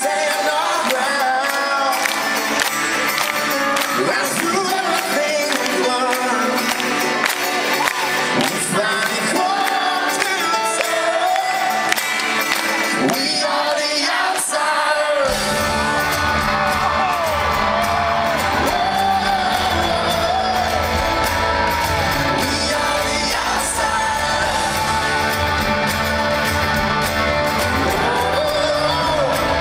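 Live rock band playing in a large hall, a male lead vocal singing over electric guitar. About halfway through, the bass and drums come in fully and the sound fills out.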